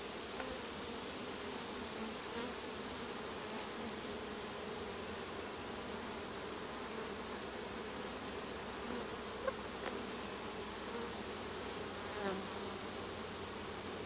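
Honey bees humming steadily around an open hive box, with a few light clicks as wooden frames are pried apart and lifted with a hive tool.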